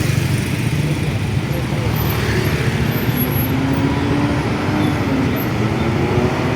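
Roadside traffic with a heavy vehicle's engine running close by, a dense, steady low rumble. A faint tone rises slowly in pitch from about halfway through.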